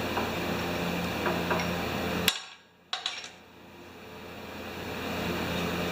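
A steady mechanical hum that cuts off abruptly about two seconds in with a sharp metallic clank. A second, smaller clank follows, then the hum slowly builds back up. The clanks come from steel dies and stainless steel sheet metal in a workshop press.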